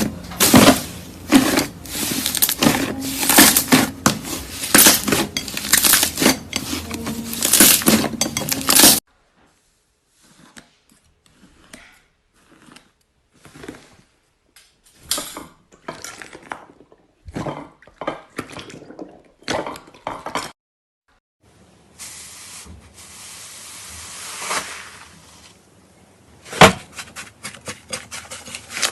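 Clinking, knocking and scraping of utensils against a container, dense at first, then sparse with silent gaps. Near the end there is a stretch of hiss and one sharp, loud knock, followed by quick clicks.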